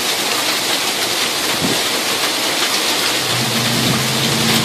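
Heavy rain mixed with small hail pouring down steadily, a dense even hiss.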